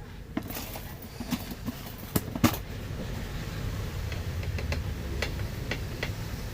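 Scattered light clicks and knocks of things being handled while preparing food, with two sharper ones about two and two and a half seconds in, over a low steady rumble.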